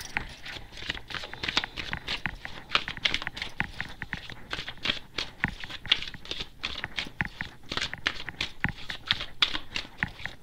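A deck of tarot cards being shuffled by hand: a quick, irregular run of soft clicks as the cards slide and strike against each other.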